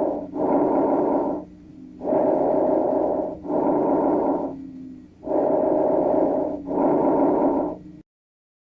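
Recorded lung sounds heard through a stethoscope: three full breaths, each a swell in and a swell out of about a second, with a low continuous snoring tone running under the breaths. These are rhonchi, the low-pitched continuous sound of abundant secretions in the bronchi. The recording cuts off abruptly about eight seconds in.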